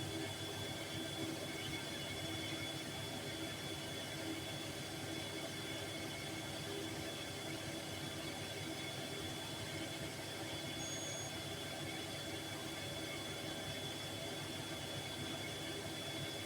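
Bosch Series 4 front-loading washing machine in its final spin at 800 rpm, the drum turning at steady speed with a constant whir and a thin high-pitched whine.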